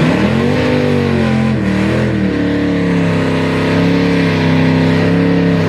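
Drag-racing car launching and accelerating hard. The engine note climbs, drops at two gear changes about one and a half and two and a quarter seconds in, then holds steady as the car runs down the strip.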